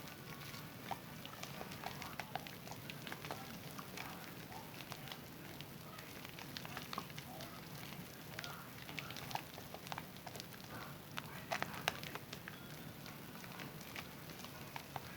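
Wet hands lathering a bar of Zest soap: irregular squishing and crackling of foam, with scattered sharper clicks.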